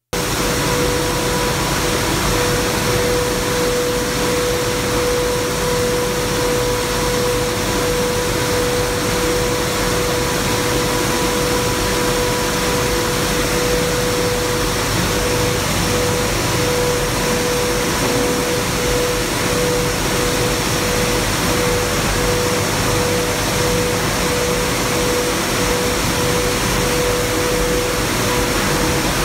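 Grain and seed screening machine running: a loud, steady rush of machine and product noise with a steady hum. From about halfway the hum starts pulsing on and off at an even rate.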